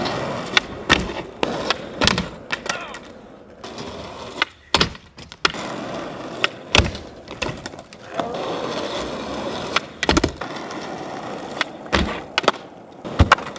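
Skateboard wheels rolling on asphalt, broken by a dozen or so sharp pops, clacks and board slaps as tricks are attempted and landed. Near the end the board's trucks hit and grind along a ledge.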